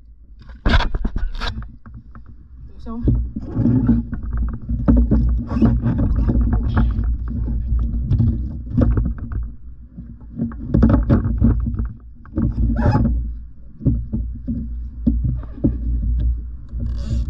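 Wind rumbling on the microphone and water lapping at a fishing kayak, with repeated knocks and rustles from handling a freshly caught octopus and fishing gear on the deck.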